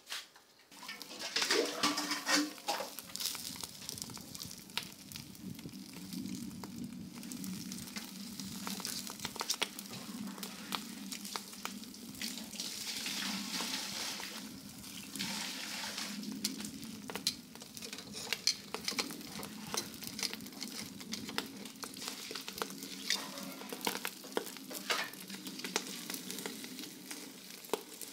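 Whole fish grilling on a wire rack over a charcoal clay stove: dripping fat sizzles and crackles on the hot coals, with many small clicks of metal tongs against the rack and fish.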